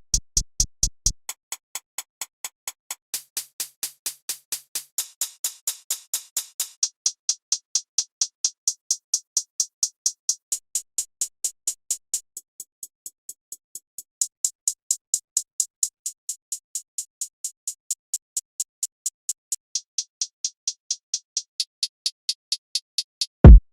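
A run of trap hi-hat one-shot samples played one after another, about four a second, each a short, crisp tick. Near the end comes a single much louder, deep kick or 808 hit.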